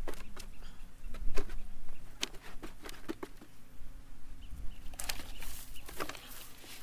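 Scattered knocks and clicks of potatoes being handled and set into a crate, then, about five seconds in, a longer rustle and patter as a five-gallon bucket of soil and potato plant is tipped out into a wheelbarrow.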